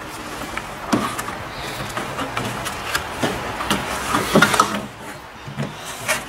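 Cardboard packaging being handled: a box lid and moulded pulp insert knocking, rubbing and scraping, with a cluster of louder knocks about two thirds of the way through.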